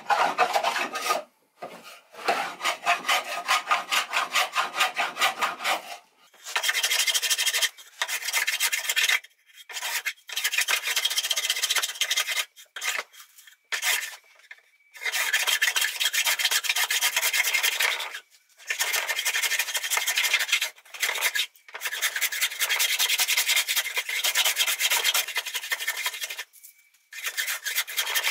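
Stanley hand plane shaving a thin sapele board held in a vise, a run of rasping strokes with short breaks between them, while the board is thicknessed down to a scribed line.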